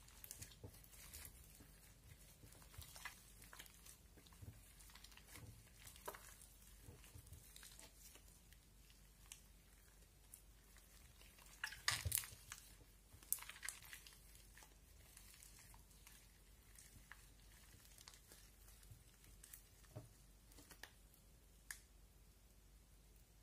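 Orange slime mixed with shaving cream being worked by hand: faint, sticky clicks and crackles, with a louder burst of crackling about twelve seconds in.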